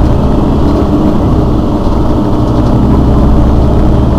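Mercedes-Benz Citaro city bus's rear-mounted engine idling steadily while the bus stands still.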